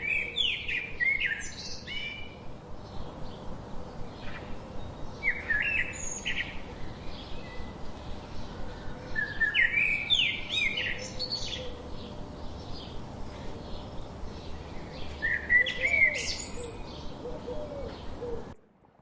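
Songbirds singing in short chirping, warbling phrases every few seconds over a steady background hiss; the sound cuts off shortly before the end.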